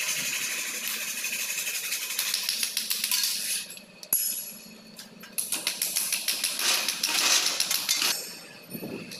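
Handheld power drill running in two long bursts, the first about three and a half seconds and the second under three seconds, with a brief pause between. It is drilling or driving screws while an aluminium frame is fixed in place.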